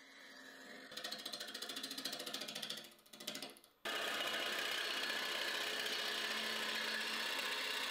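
A gouge cutting a manzanita burl spinning on a wood lathe. First comes a fast, ticking clatter as the tool meets the uneven, out-of-round burl on each turn. After an abrupt change about four seconds in, there is a louder, steady shearing noise of the cut.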